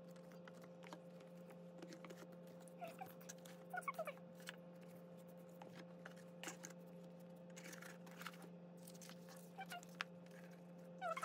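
Faint rustling and tapping of paper and cardboard as an album's photobook, letter sheets and boxes are handled on a table, with a few short squeaks, over a steady low hum.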